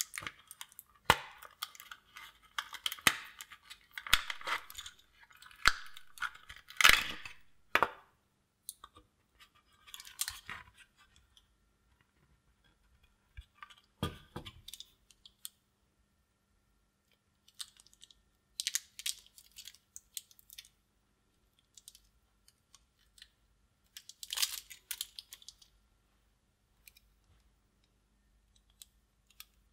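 A laptop battery pack being pried apart by hand: plastic casing and 18650 cells crackling, scraping and clicking in irregular bursts with quiet pauses between. The busiest stretch is the first several seconds.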